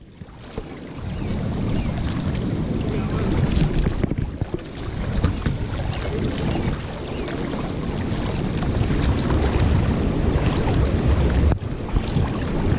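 Wind buffeting the microphone over the rush of river water: an uneven low rumble that rises and falls.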